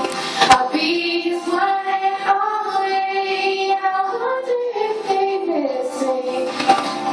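A girl singing solo into a handheld microphone, holding long notes that step between pitches. A sharp click sounds about half a second in.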